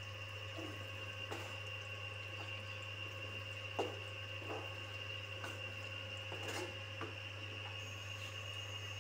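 Wooden spoon stirring and mashing eggplant bharta in an oily frying pan: wet stirring with a few short knocks and scrapes of the spoon against the pan, the sharpest about four seconds in, over a steady hum.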